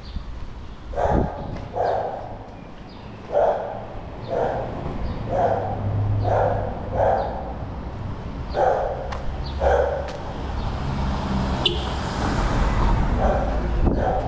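A dog barking over and over, about a dozen barks at uneven intervals, over a steady low rumble of street traffic.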